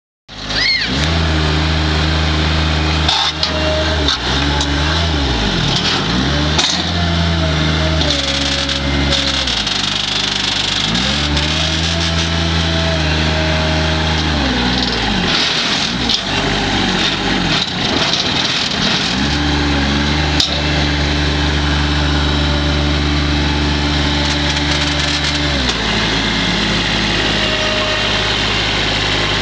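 2006 New Holland L125 skid steer's diesel engine running, its revs dropping and climbing back several times between steady stretches.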